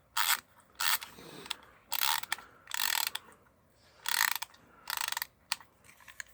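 Clockwork key of a small plastic wind-up sea turtle toy being wound, giving short bursts of ratcheting clicks with each twist, about eight twists in a row.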